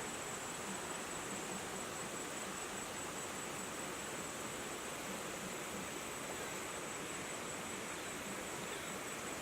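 Steady outdoor background hiss with a continuous high-pitched insect drone.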